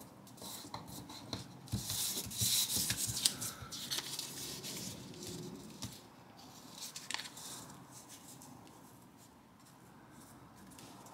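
Origami paper rustling and crinkling as it is folded and creased by hand. It is busiest in the first few seconds and thins to faint handling in the second half.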